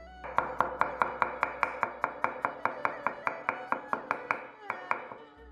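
Chinese cleaver chopping rapidly on a wooden cutting board, mincing food in quick even strokes, about six a second, that stop just before the end.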